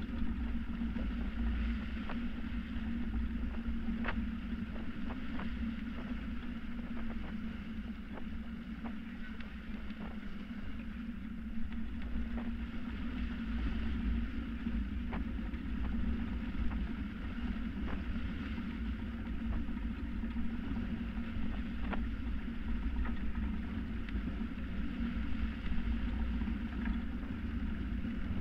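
Water rushing and churning along the hull of a Hanse 355 sailing yacht moving fast under sail, over a steady low rumble, with scattered short sharp clicks.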